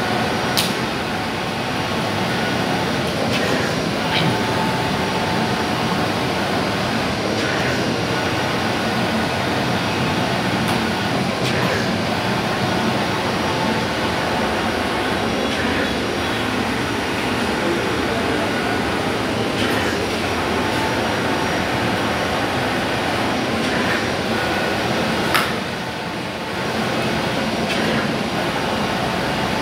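MultiCUT flatbed CNC cutting table running: a steady, loud machine hiss and hum, with a faint sharp click every few seconds.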